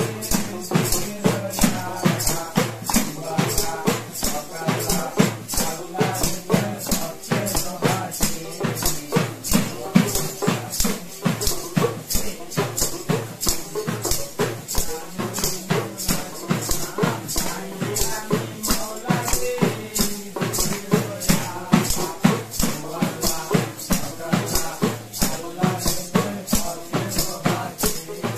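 Devotional folk music: a small hand drum and crisp percussion keeping a fast, even beat of about four strokes a second, with a voice chanting over it.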